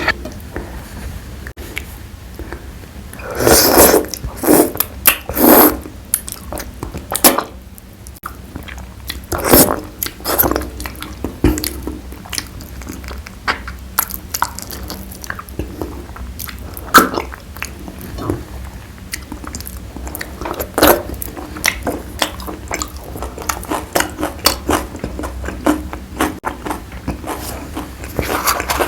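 Close-miked biting and chewing of a chicken leg piece in curry: a run of wet mouth clicks and smacks, with louder bites every few seconds.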